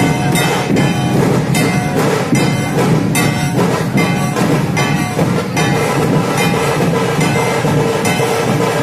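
Dhol-tasha ensemble playing: big dhol drums and tasha drums beating a loud, fast, driving rhythm.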